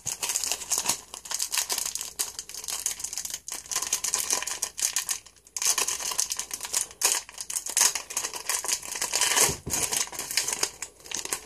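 Foil football-card pack wrapper being crinkled and torn open by hand, a run of crackling rustles broken by a few short pauses.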